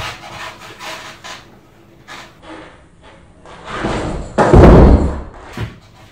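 Skateboard kickflip on a rug laid over wooden floorboards: the wheels scuff and rub, then board and feet land with a loud heavy thud about four and a half seconds in, followed by a lighter knock.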